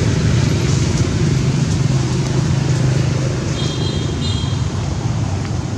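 An engine running steadily nearby, a low, even hum. Two brief high-pitched chirps sound a little past the middle.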